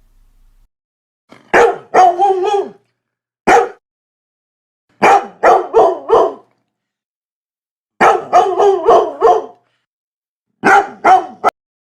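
A dog barking in quick runs of one to five sharp barks, with clean gaps of a second or more between runs.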